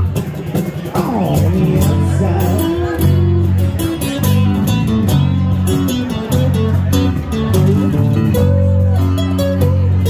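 Acoustic guitar and electric bass playing a live instrumental passage of a rock song.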